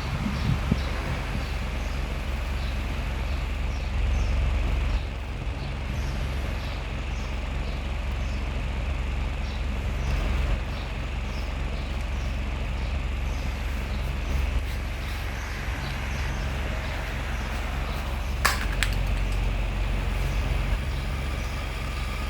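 Small electric mini ceiling fan running steadily, with a motor hum and its airflow rumbling on the microphone; a sharp click about 18 seconds in.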